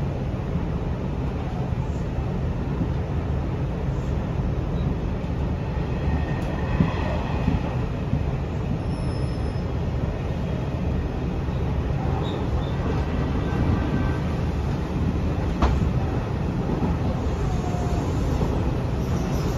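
Hanshin 1000 series electric train with Mitsubishi IGBT-VVVF drive, running at speed and heard from inside the car: a steady rumble of wheels on rail and running gear. A few faint thin squeals come about a third of the way in, and a single sharp click about three-quarters through.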